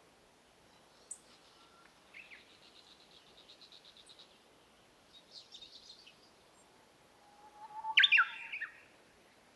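Birds singing: scattered high chirps, a rapid trill of about eight notes a second, then a louder short song phrase of sharp descending notes near the end.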